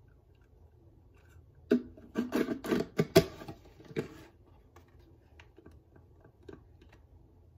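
A quick run of sharp clicks and knocks for about two seconds, then a few scattered faint clicks: a small coin-counting bank being handled and fiddled with.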